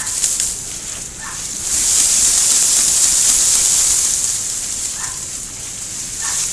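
Japanese maple branches and foliage rustling loudly as they are handled during pruning. A few sharp snips of hand pruning shears come right at the start, and the rustling swells about two seconds in and eases after four. Three short high calls from an animal sound faintly in the background.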